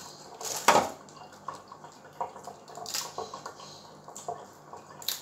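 Raw prawns being peeled with a small knife over a stainless-steel sink: small clicks and wet sounds of shells being worked off, with a sharp clatter about half a second in and smaller ones near 3 s and at the end.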